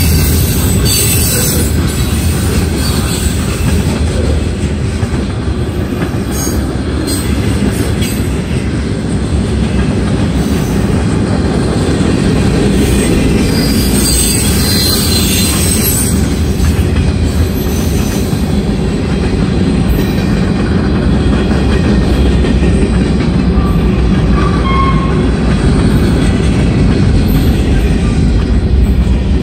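Long freight train of hopper, tank and box cars rolling past close by: a steady, loud rumble and rattle of steel wheels on the rails. A brief higher-pitched screech comes about halfway through.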